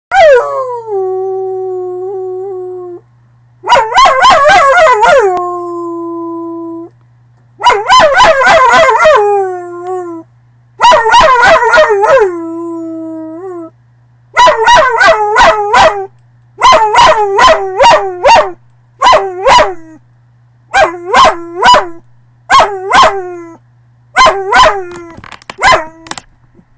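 A dog howling: four long howls, each starting high and sliding down to a held note. From about halfway the calls turn short and broken, coming in quick clusters of two to four yipping howls.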